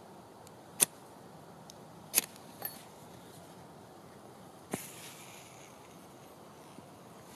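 Two short, sharp strikes of a hand fire starter, about a second and two seconds in, lighting a piece of tissue. Near five seconds another sharp sound and a brief soft hiss as the burning tissue sets the spirit alight in a homemade can-bottom alcohol stove.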